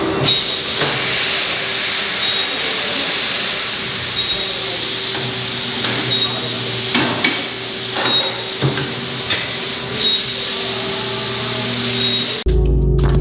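Tire-shop work noise: a steady hiss with scattered clicks and a faint, short, high beep repeating about once a second. Music with a heavy beat cuts in near the end.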